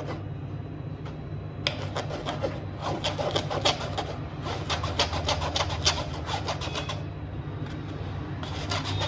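Steel spoon scraping flour through a wire-mesh sieve into a glass bowl: quick rubbing strokes that start about a second and a half in, pause briefly near the end, then start again.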